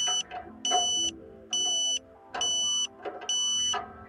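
KA-SAT antenna-pointing tone beeping evenly: a high steady beep about once a second, the lock tone that signals the modem has locked onto the satellite. Soft background music plays underneath.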